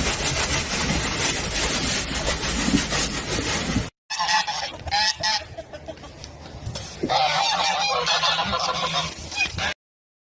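Geese honking in repeated bursts of calls, preceded by a few seconds of steady scratchy rustling like stiff brush bristles being rubbed.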